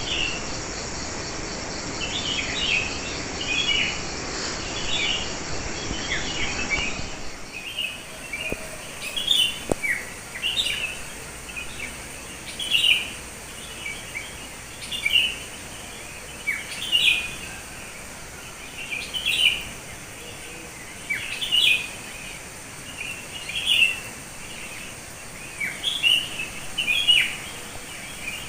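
Wild songbirds chirping over a steady high insect trill. About seven seconds in the sound changes abruptly to a single bird repeating a short, loud, falling call about every two seconds.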